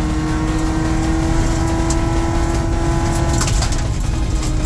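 Subaru Impreza GC8's flat-four engine pulling at steady revs, its note rising gently, heard from inside the cabin over a heavy rumble of tyres on gravel. Short scattered ticks run through it, typical of loose stones flicking against the car's underside.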